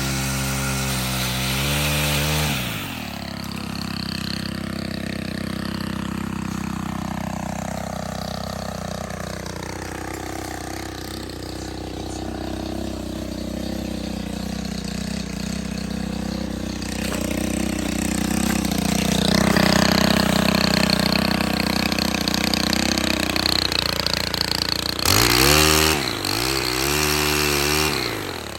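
Stihl HT 131 pole saw's small petrol engine running, held at high throttle for a couple of seconds, then dropping back and wavering in pitch as it saws through a limb. A louder stretch of cutting comes about two-thirds through, and near the end it is blipped up and down a few times.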